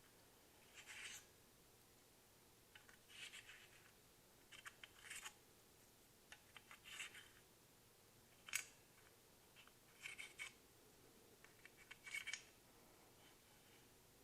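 Faint, scattered light clicks and scrapes of the small vanes of a Gast rotary vane vacuum pump being handled and slid back into the rotor slots as they are flipped over, with one sharper click a little past halfway.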